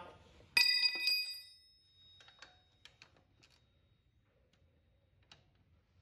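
A metal hand tool clanks against metal with a clear ringing tone about half a second in, struck again a moment later, followed by a few light clicks and taps as tools are handled.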